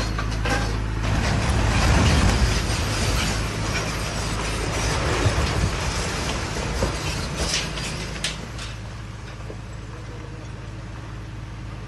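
Damaged four-storey concrete building collapsing: a loud rumbling crash that builds about a second in and peaks around two seconds, followed by scattered cracks and clatter of falling debris that die away after about eight seconds. Under it, a tracked excavator's engine runs steadily.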